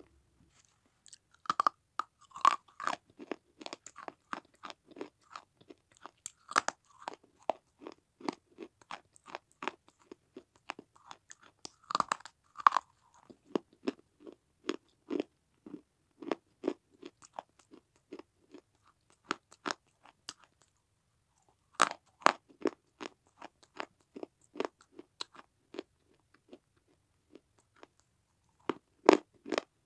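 Baked red clay being bitten and chewed: sharp cracking bites followed by runs of crunching chews. The loudest bites come about 2, 12 and 22 seconds in and again just before the end, with short pauses in between.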